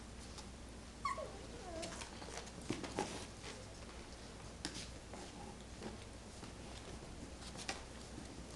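A puppy gives a short high yelp about a second in that falls in pitch, then a brief lower whine. Small knocks and pattering of paws and toys on the hardwood floor run through it.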